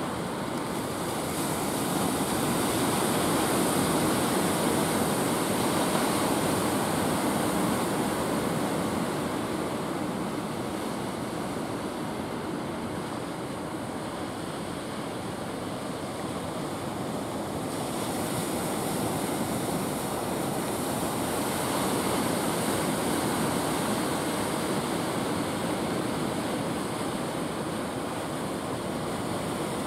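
Ocean surf breaking and washing up the shore in a steady rush, swelling and easing in slow surges.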